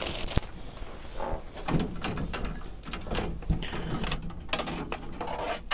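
Handling noise: a clear plastic bag crinkling, then Commodore 64 motherboards knocking and scraping against each other as they are shuffled upright in a cardboard box, an irregular run of clicks and knocks.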